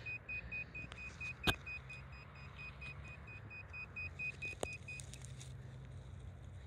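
A handheld metal-detecting pinpointer beeping rapidly and evenly, about five short high beeps a second, which stop about five seconds in; the owner says the pinpointer is playing up. Two sharp clicks are heard during the beeping.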